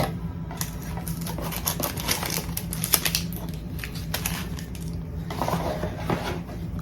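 Packaging crinkling and rustling with scattered clicks and taps, one sharp tap about three seconds in, as a bead spinner is unwrapped and handled.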